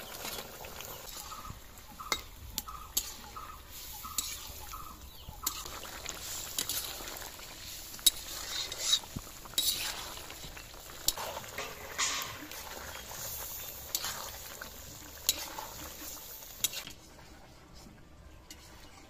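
Metal utensils clinking and scraping against a kadai as fried fish pieces are slid off a steel plate into simmering curry and stirred, over a steady bubbling hiss from the pot. The clinks come irregularly and stop near the end.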